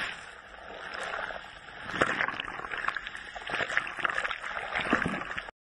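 Ocean surf washing over a camera at the waterline: churning, splashing water that eases briefly, swells again about two seconds in, and cuts off suddenly near the end.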